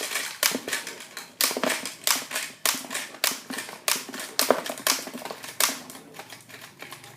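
A Crossfight B-daman toy marble shooter fitted with Power Manteau gear firing in rapid succession: a run of sharp plastic clicks and marble impacts, about three a second, thinning out and fading near the end.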